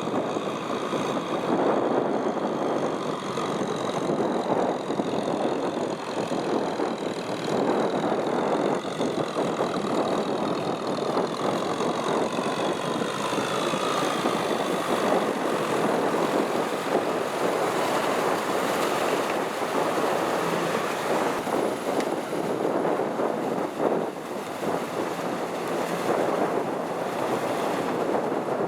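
Kubota M6040SU tractor's diesel engine running steadily, with a constant rushing noise over it.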